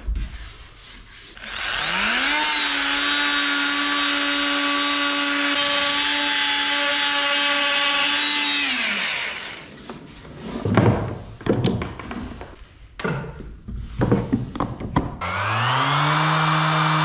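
Oscillating multi-tool starting up, running steadily for about seven seconds with a high whine as it cuts into plywood, then winding down. A few sharp knocks follow, and near the end a random orbital sander starts up and runs steadily.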